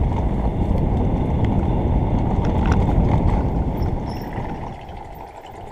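Wind rumbling on a helmet-mounted microphone together with mountain bike tyres rolling over a dirt trail, with scattered small clicks and rattles; the noise eases off near the end as the bike slows.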